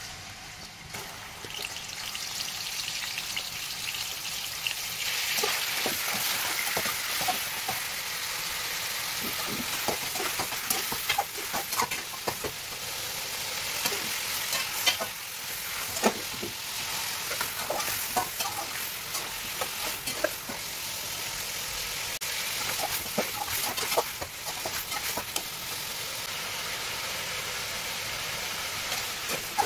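Mutton pieces sizzling as they fry in hot oil in a metal karahi, the sizzle building over the first few seconds as more meat goes in. A spatula stirring the meat scrapes and knocks against the pan again and again.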